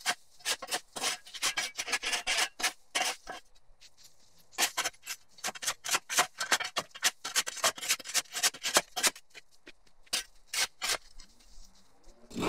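A flat shovel blade scraping overgrown grass and dirt off a concrete driveway in quick repeated strokes, several a second, with a short pause about three and a half seconds in and a stop about a second before the end.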